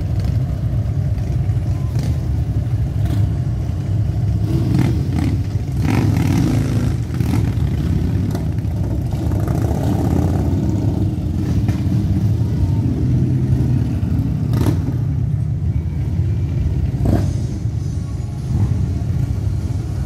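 A group of cruiser and touring motorcycles riding slowly past, several engines running at once in a steady low drone.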